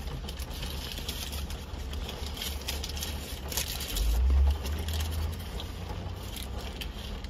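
Steady low rumble of a car's cabin, with a paper wrapper rustling and crinkling in short crackles. A brief louder low thump-like surge about four seconds in.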